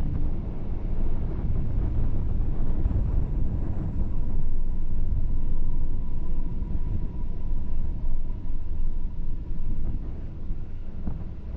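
Vehicle on the move: a steady low rumble of road and wind noise on the camera microphone, with a faint high tone in the middle.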